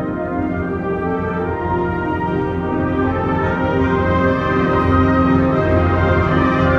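High-school honor concert band playing held chords, with brass prominent, growing gradually louder.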